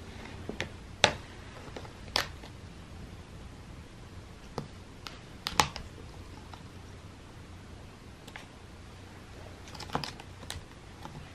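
Scattered sharp plastic clicks and taps as a cat in a plastic basket bats at a wand toy whose rod knocks against the basket rim, the loudest about a second, two seconds and five and a half seconds in, with a small cluster near the end.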